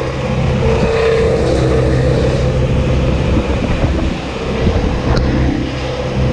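Bucket truck's engine running steadily, a low even hum with a constant higher whine over it.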